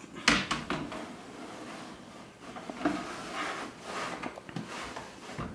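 Parts being handled and fitted back into the TV's chassis: a sharp knock about a quarter second in, then scraping and rustling with a few lighter knocks.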